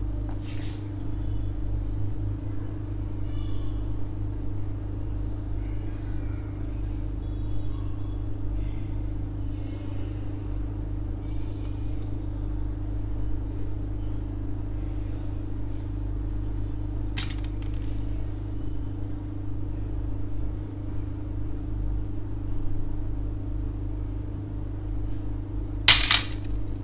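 Steady low hum with a constant low drone, with a few faint clicks along the way and a sharper click near the end.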